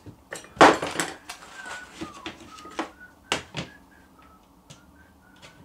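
Irregular knocks and clicks of screws and wooden parts being handled on a workbench during assembly, the loudest clatter about half a second in, with a few faint short squeaks.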